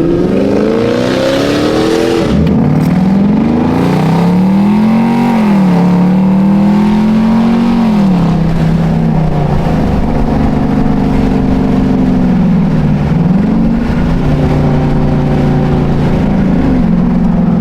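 Car engine accelerating and revving. Its pitch climbs over the first two seconds and drops abruptly. It then rises and falls several times, holding steady in between.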